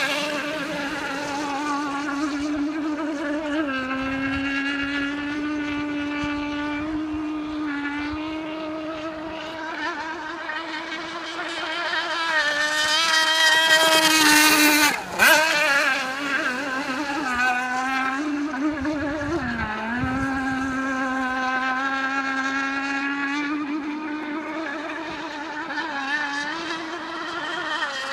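Venom Hydro radio-controlled speedboat running at speed, its motor a steady whine whose pitch dips and recovers several times with the throttle. It grows louder about halfway through, breaks off for a moment, then carries on.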